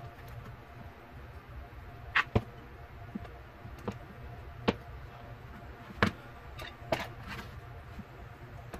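Kitchen knife cutting down through chocolate-topped fudge and knocking on a plastic cutting board: about seven sharp clicks at uneven spacing, the first pair about two seconds in, over a low steady hum.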